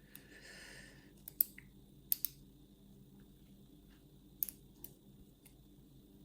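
Lock pick working the pins of a Brisant euro cylinder: sharp, scattered metallic clicks, a few at a time, as the security pins are picked.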